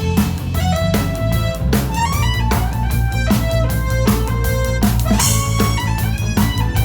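A rock band playing: a sustained, bending electric guitar melody over bass and drums with a steady beat.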